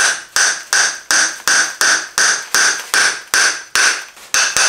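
Hammer striking a chisel against a plaster wall, chipping old plaster off the brick beneath. The blows come steadily at about three a second and quicken near the end, each with a short metallic ring.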